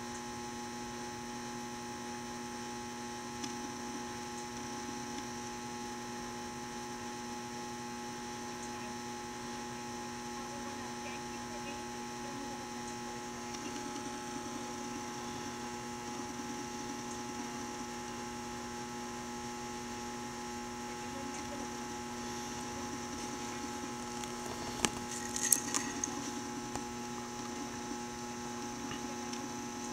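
Steady electrical hum made of several constant tones over a faint hiss, with a short cluster of clicks about 25 seconds in.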